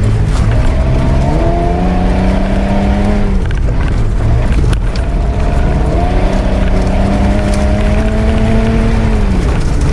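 Off-road 4x4's engine, heard from inside the cabin, revving up twice under acceleration: each time the pitch rises and then holds for a few seconds before dropping away. A constant low rumble from the vehicle bouncing over the rough dirt track runs underneath.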